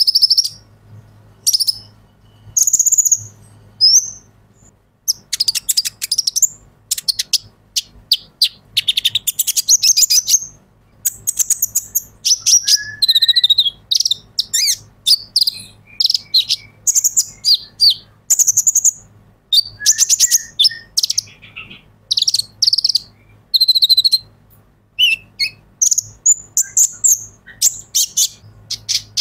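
Male Van Hasselt's sunbird (kolibri ninja) in full song: rapid bursts of high, thin twittering chirps and trills, broken by short pauses.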